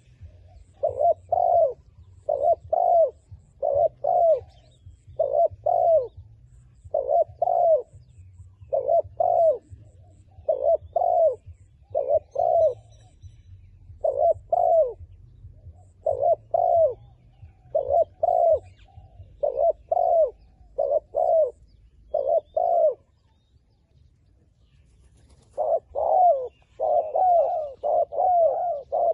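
Decoy dove cooing: short coos in pairs, repeated about every one and a half to two seconds. After a pause of a couple of seconds near the end, a quicker run of coos follows.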